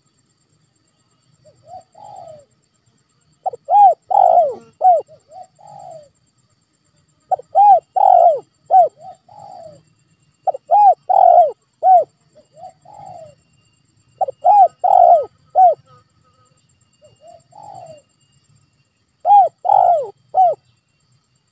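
Spotted dove (tekukur) cooing: about five loud phrases, each of three or four rounded, arching coos, one phrase every three to four seconds, with a few soft single coos in the gaps.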